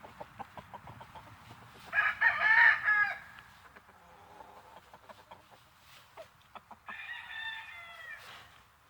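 Two rooster crows: a loud one about two seconds in lasting about a second, and a fainter, longer one near the end that falls off at its close, with short clucks between.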